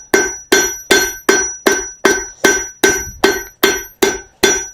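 Blacksmith's hammer striking steel round stock on an anvil in a steady rhythm, about two and a half blows a second, each blow ringing with a bell-like tone. The hammering closes the flattened stalk over on itself to form the leaf.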